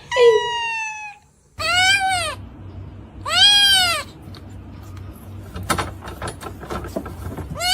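A cat meowing: three long, loud meows, the later two rising and then falling in pitch, and another meow starting near the end.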